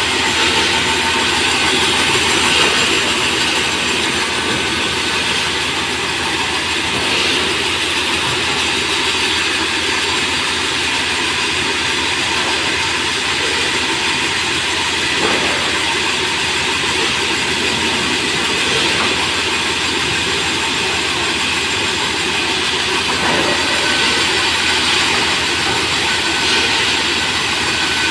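Sawmill machinery running steadily as merbau planks are fed through a saw along a chain-and-roller conveyor, a loud continuous mechanical din with a brief knock about fifteen seconds in.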